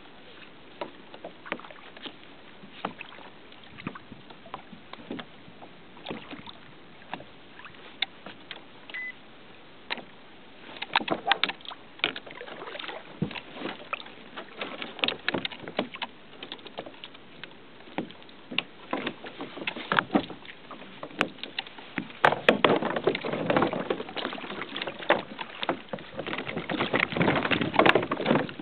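Water slapping and lapping against a plastic fishing kayak's hull, with many small knocks and clatters from the boat and gear. The knocks come thicker and louder in a short stretch about eleven seconds in and again through the last few seconds.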